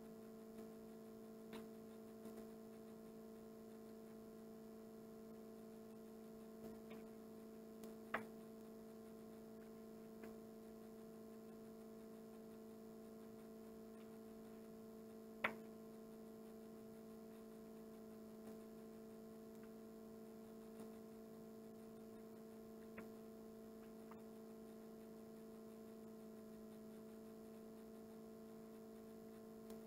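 Near silence: a steady low electrical hum, with a few faint clicks scattered through it, the two loudest about 8 and 15 seconds in.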